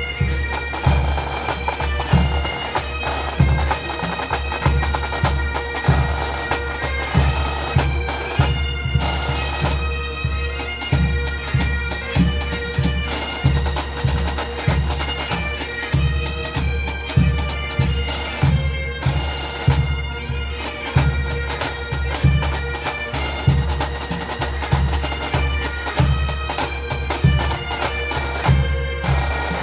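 A pipe band playing a tune: Highland bagpipes sounding a melody over their steady drones, with a bass drum beating a regular pulse about once a second.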